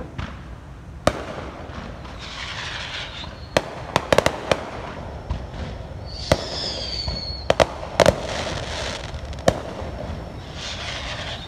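Fireworks going off: scattered sharp bangs and crackling, with a high whistle about six seconds in that falls slightly in pitch.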